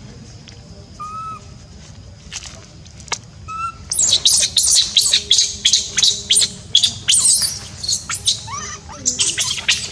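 Infant long-tailed macaque screaming. Two short high squeaks come early, then from about four seconds in a fast run of loud, piercing shrieks that stops just before the end.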